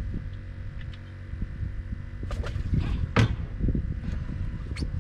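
A few sharp knocks and clicks of handling on a boat, the loudest about three seconds in, over a steady low rumble of wind on the microphone.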